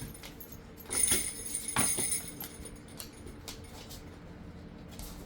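Dog door bells hanging off the door hook jangle as a Rottweiler rings them to ask to go out. The jangle starts about a second in, with two louder shakes less than a second apart, then fainter jingles.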